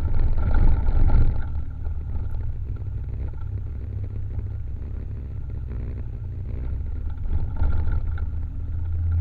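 Honda Vario 150 scooter being ridden, its engine running under a steady low rumble of wind buffeting the microphone. Louder in the first second or so, then steady.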